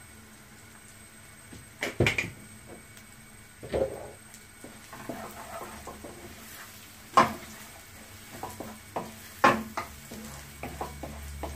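Wooden spatula stirring and scraping a fry of onions and egg in a non-stick frying pan, with several sharp knocks of spatula or spoon against the pan. The loudest knocks come about two seconds and seven seconds in.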